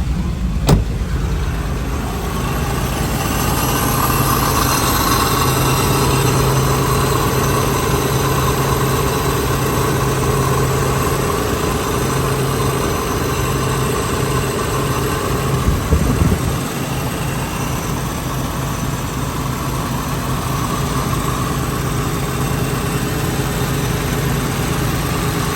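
A 1995 Toyota 4Runner's 3.0-litre V6 idles steadily. There is a single click shortly after the start.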